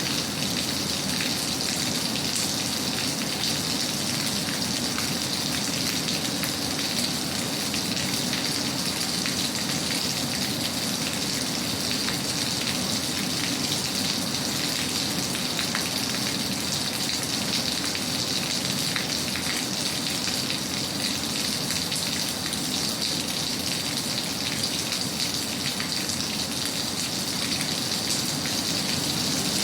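Steady rain falling, a dense, even patter of drops on a surface.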